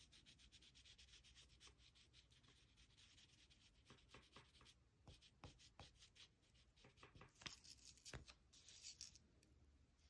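Sakura Cray-Pas Expressionist oil pastel stick rubbing over cardboard in quick, short colouring strokes, faint. In the second half the strokes come further apart and a little louder.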